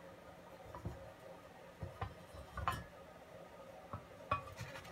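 Chopsticks tapping and clicking against a glass bowl of melted candle wax as they fish for the old wick: a few faint, separate clicks.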